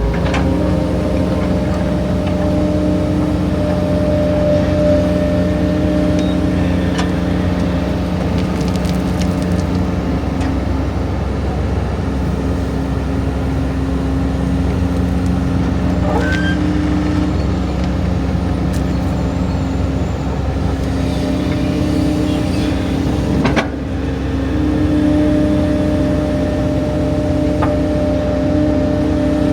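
Large diesel engine running steadily at constant speed, with one brief knock about 23 seconds in.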